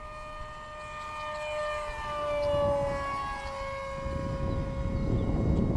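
Motor and propeller of a model F-117 Nighthawk RC plane whining steadily, the pitch dropping a little as it flies past. A rush of wind noise grows on the microphone over the last couple of seconds.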